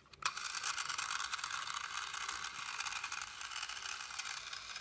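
Battery-powered motor and gears of a Fisher-Price TrackMaster Emily toy train whirring steadily as it runs with its wheels spinning freely in the air. It switches on with a click just after the start, showing the batteries still work.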